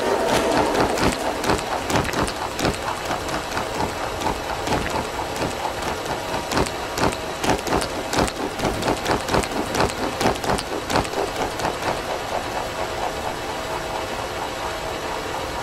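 Dense, irregular crackling: a rapid patter of sharp clicks over a noisy hiss.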